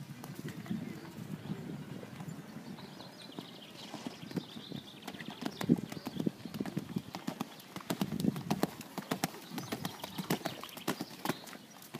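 Horse's hooves cantering on a sand arena, a run of soft, regular hoofbeats that grow louder and closer from about five seconds in.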